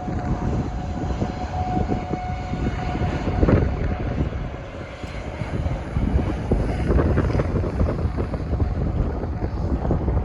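Strong wind buffeting the microphone: a gusty low rumble that rises and falls in surges, with a faint steady tone in the first few seconds.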